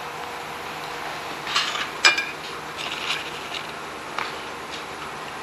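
Chopsticks and tableware clinking lightly on a ceramic plate a few times, the sharpest clink about two seconds in, with small handling rustles, over steady room noise.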